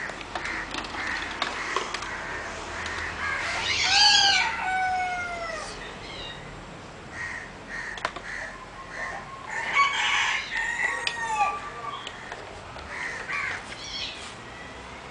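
Birds calling: two long calls that arch and fall in pitch, about four seconds in and again near ten seconds, over repeated short calls.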